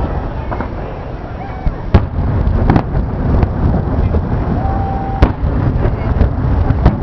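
Fireworks shells bursting overhead: a continuous rumble of booms, broken by four sharp bangs about two, three, five and seven seconds in.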